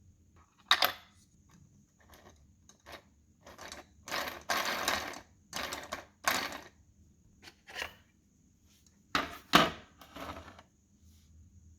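Two 3D-printed plastic gears meshing as they are turned, in short spurts of clicking, rattling tooth-on-tooth contact. The loudest sharp clicks come about a second in and again about nine seconds in.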